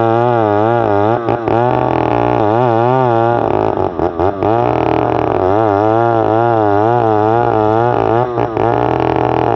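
Stihl 070 two-stroke chainsaw running hard while ripping a log into boards, its pitch wavering up and down about three times a second as the chain loads in the cut. It briefly drops off a few times.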